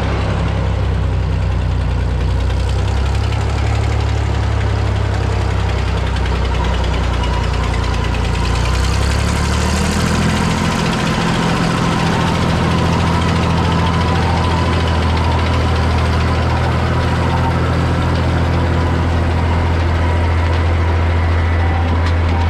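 Engine of a New Idea Uni-System squash harvester running steadily at idle, a low even hum, its note shifting a little higher about ten seconds in.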